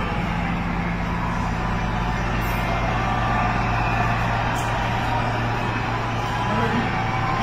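Helicopter flying low overhead, its rotor and engine making a steady drone.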